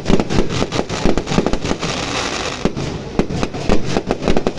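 Fireworks going off: a rapid, irregular stream of bangs and crackling explosions, several per second.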